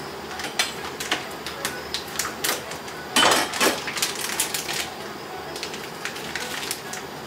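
Kitchen utensil sounds: irregular sharp clicks and light knocks of cooking work at the counter, with a brief louder rush of scraping noise about three seconds in.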